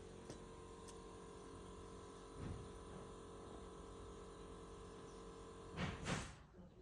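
Faint steady electrical hum that cuts out near the end, with a soft dull thump about two and a half seconds in and two short rustling bursts just before the hum stops.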